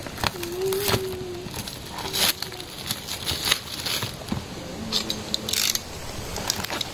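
Plastic wrap crinkling and tearing as it is peeled off a cardboard fireworks box, with scattered clicks and scrapes of handling and a box cutter near the end.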